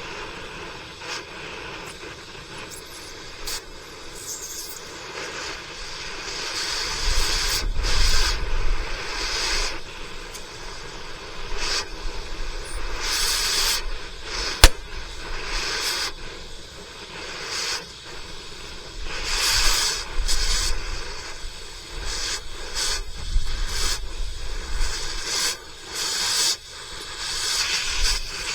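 Oxy-acetylene cutting torch hissing steadily as it cuts through a steel beam, with irregular crackling and popping of spattering molten metal. The hiss swells louder several times, and there is one sharp pop about fifteen seconds in.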